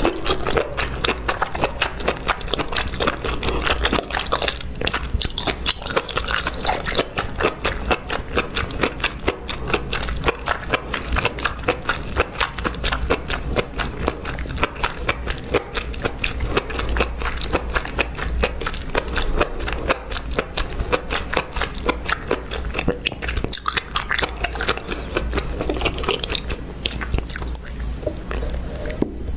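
Close-miked chewing of chili-sauced mushrooms, a steady run of small crunches and clicks several times a second.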